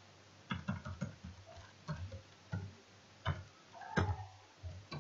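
Computer keyboard keys clicking in slow, irregular single keystrokes as text is typed and a typo is backspaced and retyped.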